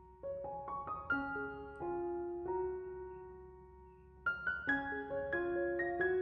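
Background piano music: short runs of quick notes, with held notes left to ring and fade between them.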